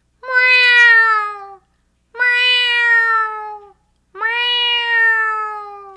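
A woman's singing voice doing a vocal warm-up exercise: three separate sustained tones, each starting with a small lift and then sliding slowly down in pitch. The last tone fades out.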